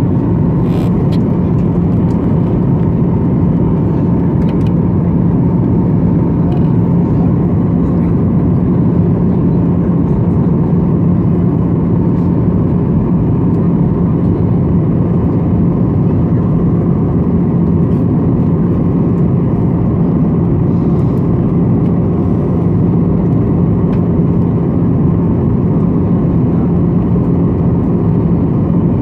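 Steady cabin noise of a Boeing 737-800 on descent, heard from a window seat beside the wing: the CFM56-7B turbofan engine's drone and the rush of air, with a steady low hum.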